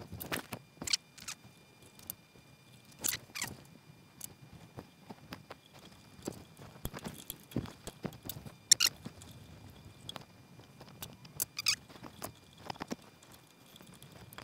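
Small scattered clicks, scratches and brief squeaky scrapes of tools and hands working on the oscilloscope's chassis, with one sharp click loudest a bit past the middle. Faint steady high-pitched tones sit underneath.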